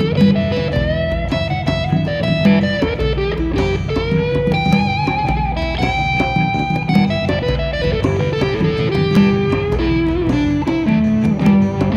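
Live band playing an instrumental passage: an electric guitar plays a lead line of held, sliding notes over plucked acoustic guitar and bass guitar.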